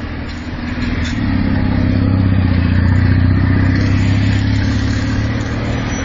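A motor vehicle's engine running close by, growing louder about a second in and then holding steady.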